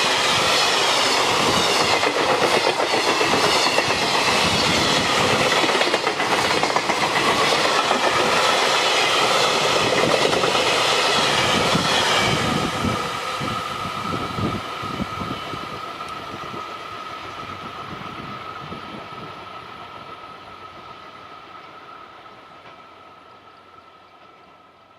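Freight train hauled by an electric locomotive passing, its wagons clattering over the rail joints. From about twelve seconds in the noise steadily fades away, with a steady high ringing tone lingering as it dies down.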